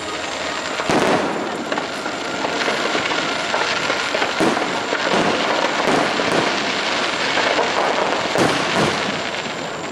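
Fireworks bursting in rapid succession, a dense run of overlapping bangs. The loudest bangs come about a second in and again near the end.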